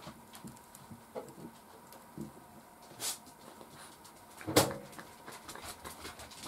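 A few scattered light knocks and rustles, with one sharp knock about four and a half seconds in, the loudest sound.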